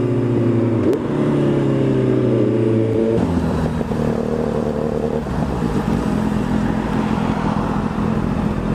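Honda CB650F inline-four motorcycle engine running under way. Its pitch jumps up about a second in, then steps down around three seconds and again around five seconds in, like changes of revs or gear.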